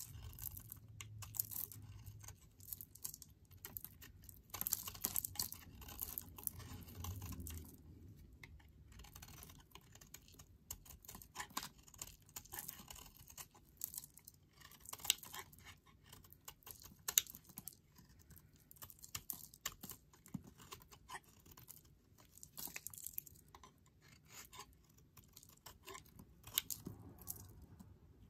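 Snap-off utility-knife blade shaving and carving a bar of Caress charcoal soap: a long run of quick, irregular crisp clicks and crackles as flakes and crumbs break away.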